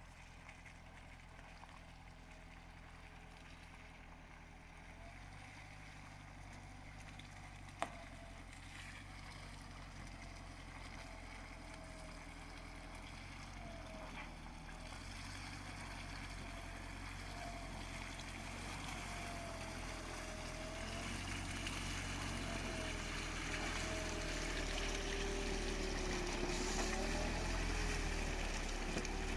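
Mitsubishi Shogun Sport's 2.5 diesel engine running at low revs as it crawls through muddy, water-filled ruts on street tyres, with mud and water sloshing under the wheels; the sound grows steadily louder. A single sharp click about eight seconds in.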